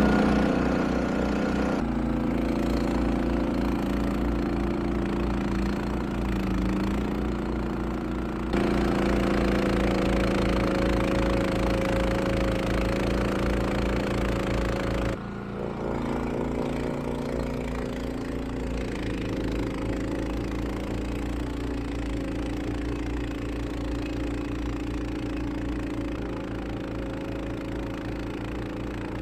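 Honda HSM1390i snowblower's single-cylinder iGX390 engine running steadily under load while clearing snow. Its pitch and level jump abruptly a few times.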